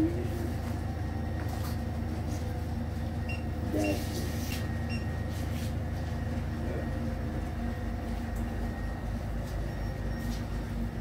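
Steady low rumble of a running engine, with a few faint clicks and knocks.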